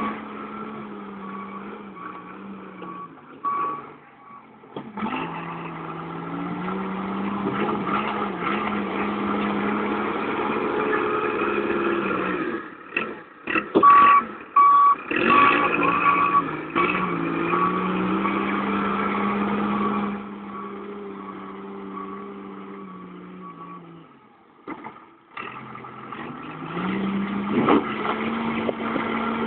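A truck engine running and changing pitch as it revs up and settles, with a reversing alarm beeping at times, from the start and again from about halfway to two-thirds of the way through. A few sharp loud knocks come just before halfway.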